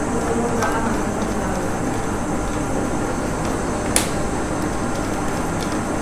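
Steady background hiss with a few faint ticks and one sharp click about four seconds in, from hands fitting wires and screws at the switch terminals of a wooden switchboard.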